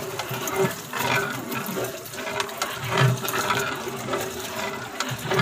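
Milk sloshing as a long metal stirring rod is worked through a large aluminium cooking pot (deg) of milk and rice, with a steady hum underneath.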